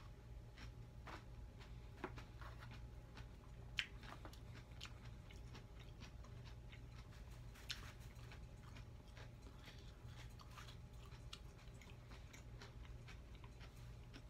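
Faint crinkling and clicking as used paper napkins are pushed into a clear plastic takeout container, with a few sharper plastic ticks, over a low steady hum.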